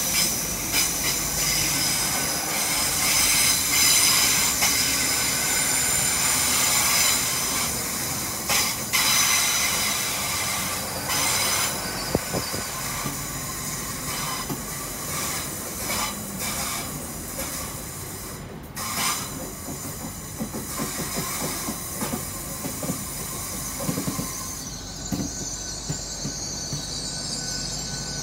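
Pair of Class 800 Intercity Express Train units running along a curved platform, the wheels squealing with several high-pitched tones over a rumble of running gear, with occasional clicks and knocks. The squeal eases near the end.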